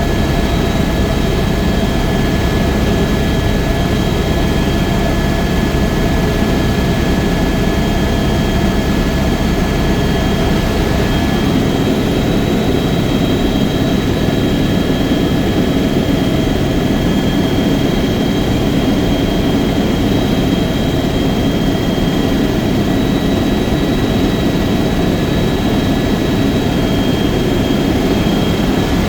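Helicopter in flight: steady turbine and rotor noise, a dense low rumble with a few high, steady whine tones above it. About twelve seconds in, the deepest rumble eases slightly and one of the whine tones drops out.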